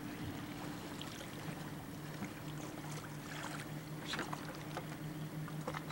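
A steady engine drone, with water lapping and splashing irregularly over it.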